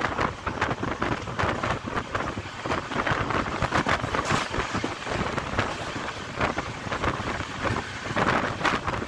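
Passenger train running at speed, heard from an open carriage window: wind rushing over the microphone, with the continuous rumble and clatter of wheels on the rails.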